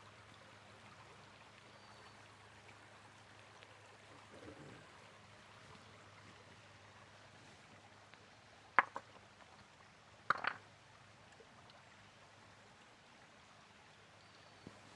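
Creek water running steadily, with two sharp clicks a second and a half apart a little past the middle.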